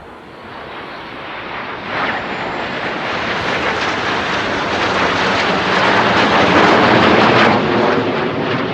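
Airplane flying overhead, a rushing noise that swells to a peak about seven seconds in, then starts to fade.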